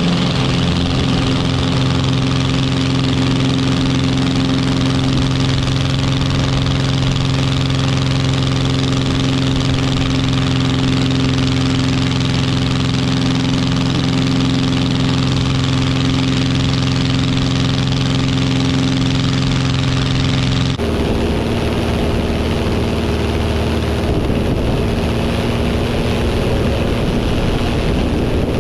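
Avid Flyer light aircraft's engine and propeller running steadily at low power. About three-quarters of the way through the sound changes abruptly to a rougher, noisier engine sound.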